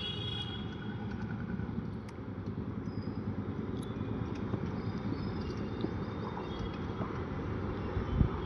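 A motor running steadily with a fast, even flutter.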